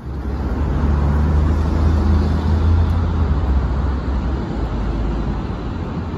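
Low, steady engine hum over traffic noise, the deep hum dropping away about four and a half seconds in.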